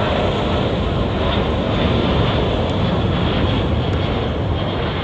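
Boeing 777 jet engines at climb power as the airliner climbs out after takeoff: a loud, steady rumble and rush of jet noise.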